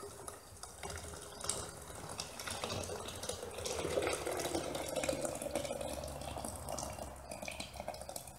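Soupy plaster of Paris and sand mix pouring from a plastic tub into a steel can. The pour grows louder toward the middle and eases off near the end.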